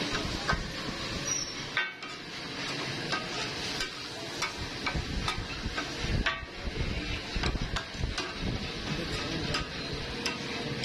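Metal spatulas clacking and scraping on a large flat iron tawa griddle, with scattered sharp knocks over a steady hiss of frying.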